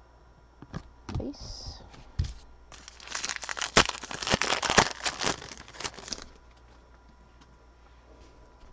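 Foil wrapper of a trading-card pack crinkling and tearing open for about three seconds, starting near the middle, after a few light taps.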